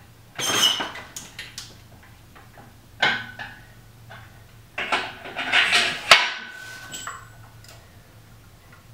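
Scattered metallic clunks and rattles from an engine hoist and its chains as a hanging engine is let down, with a longer scraping rush about five to six seconds in.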